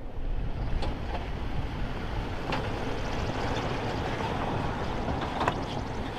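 Off-road truck driving over a rough dirt trail: a steady rumble with scattered knocks and rattles.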